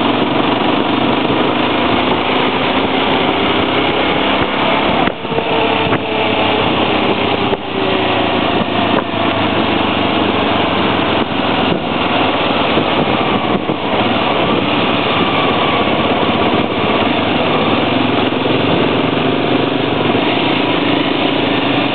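Honda 250 motorcycle engine running under way, its pitch rising and falling with the throttle, with brief drops in level about five and seven and a half seconds in.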